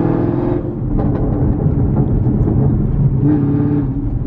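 Camaro SS's 6.2-litre V8, breathing through catless long-tube headers with a tune, running under steady throttle, then easing off about half a second in. The exhaust then crackles and pops on the overrun, with a brief return to throttle near the end.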